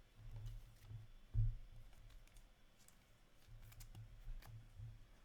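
Trading cards being handled on a table: faint clicks and soft thuds, with one louder thump about a second and a half in.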